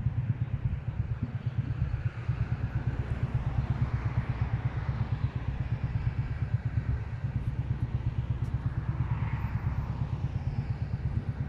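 Wind buffeting a phone's microphone outdoors: a steady low rumble that flutters rapidly, with a fainter hiss above it.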